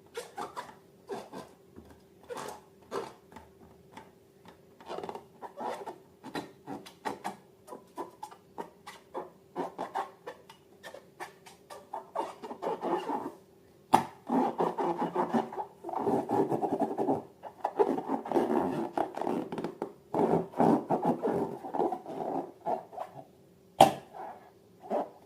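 Slime being worked by hand: a run of short sticky clicks and crackles that becomes much denser and louder about halfway through, over a faint steady hum.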